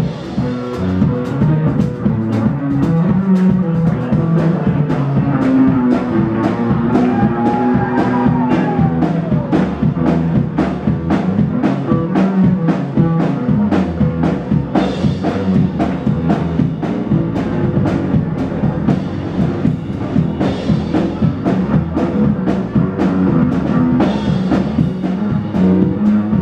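Live blues band playing an instrumental passage: electric guitars over a drum kit keeping a steady beat, with a bent lead note about eight seconds in.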